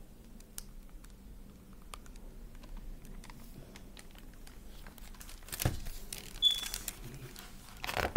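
A hardcover picture book being handled and its pages turned: light clicks and paper rustles, with louder rustling twice in the second half and a brief high squeak between them.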